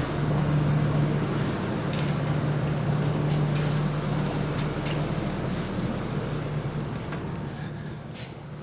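An engine idling steadily with a constant low hum, slowly getting quieter near the end, with a few light clicks and rustles over it.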